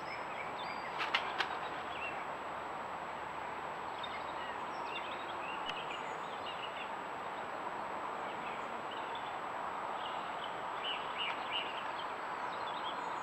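Faint songbird chirps scattered over a steady hiss, as picked up by a trail camera's built-in microphone, with two sharp clicks about a second in.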